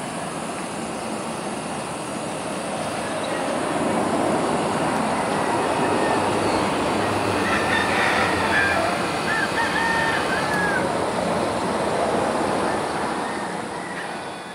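Roosters crowing, with wavering calls about halfway through, over a steady rushing noise that swells a few seconds in and fades near the end.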